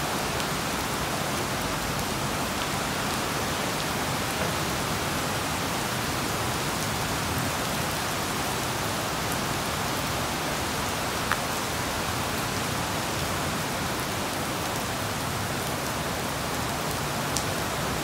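Heavy rain pouring steadily in a storm, falling on the platform, tracks and station roof. A couple of brief ticks, about eleven seconds in and near the end.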